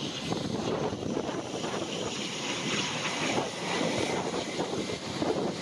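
Wind buffeting the microphone and heavy rain hiss, a steady, dense rush, with an ATR 72-600 twin turboprop's engines passing low on landing approach beneath it.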